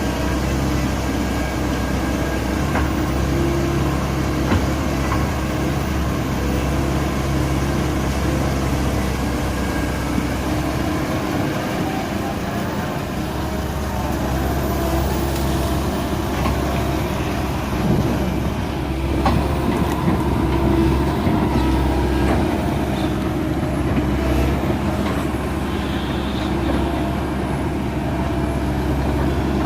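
Heavy diesel engine of a tracked excavator running steadily under working load, with a few short knocks and clanks, one plainer than the rest about two-thirds of the way through.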